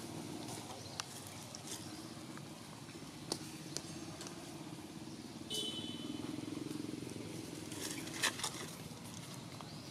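Dry leaf litter crackling now and then as macaques move and shift on the forest floor, over a steady low drone. There is a short high chirp about five and a half seconds in and a quick run of crackles near the end.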